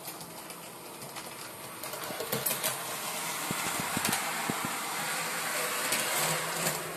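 Model class 56 diesel locomotive running along the layout track, its motor and wheels growing louder as it comes close, with a scatter of clicks as the wheels cross rail joints and points.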